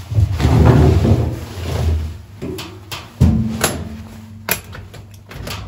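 The flush latches and door panel of a WhisperPower auxiliary diesel generator's sound-insulating enclosure being unlatched and opened. About two and a half seconds in there is a run of sharp clicks and knocks, with one heavier thump about three seconds in. Before it comes a loud rumbling rustle.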